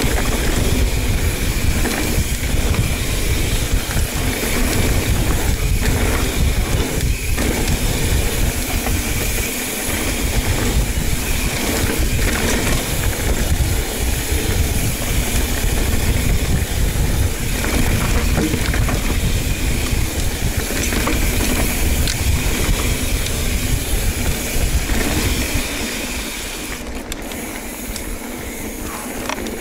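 Wind rushing over the microphone while an Ibis Ripley 29er mountain bike rattles over rough trail, with scattered knocks from the bike. The wind rumble eases near the end.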